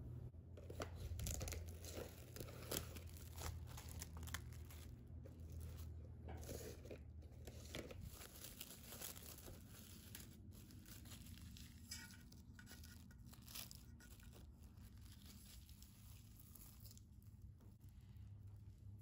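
Soft baked milk bread being pulled apart by hand: faint, irregular tearing and crinkling rustles, busiest in the first half and thinning out later.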